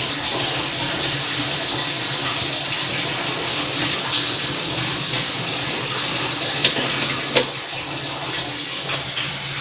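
Pot of lemongrass-and-ginger water at a hard boil, bubbling with a steady watery rush. Two sharp clinks come about seven seconds in.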